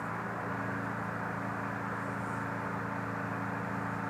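Steady mechanical hum of a running engine or motor, even in level throughout, with a few steady low tones in it.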